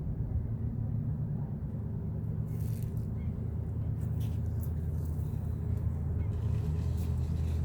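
Steady low engine rumble, even in level throughout.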